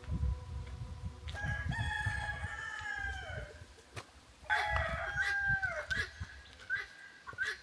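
Rooster crowing twice, each crow a long call that drops in pitch at the end, followed by a few short clucks near the end.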